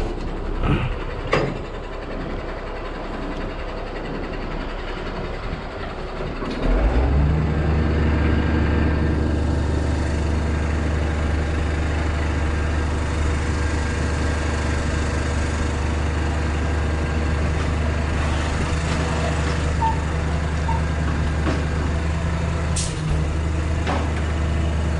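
Tow truck's diesel engine running and stepping up to a louder, steady drone about seven seconds in as the hydraulic crane takes the load, with a few clanks of the hook and slings early on.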